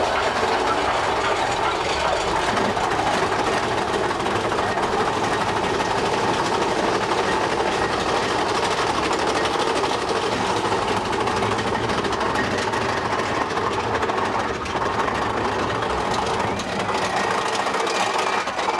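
Mine-train roller coaster (Big Thunder Mountain Railroad) running along its track, heard from on board: a steady rumble of the train throughout.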